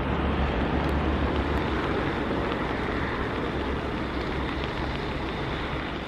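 Steady rain drumming on an umbrella, an even hiss with a low rumble beneath it.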